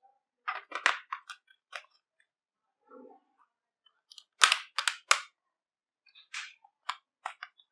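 AAA batteries clicking into the plastic battery compartment of a Logitech MK345 keyboard, then the plastic battery cover fitted and pressed shut with sharp plastic snaps. A cluster of clicks comes in the first couple of seconds, the loudest snaps about four to five seconds in, and lighter clicks near the end.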